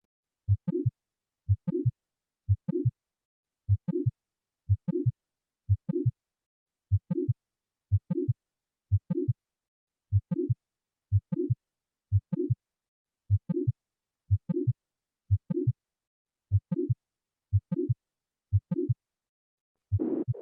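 Recorded heart sounds for auscultation practice: a slow, regular beat of a little under one a second, each beat two low thuds close together with a short higher-pitched sound filling the gap between them, the pattern of a systolic murmur.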